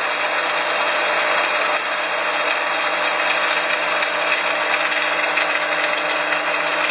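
Soya protein chunk extruder processing line running: a steady, dense mechanical noise as the freshly extruded chunks pour out.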